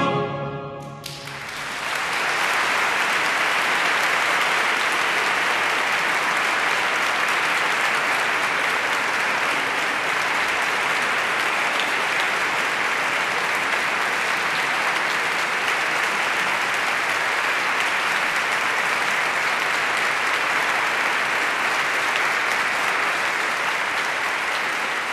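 The last chord of a choir and baroque orchestra dies away about a second in, then an audience applauds steadily.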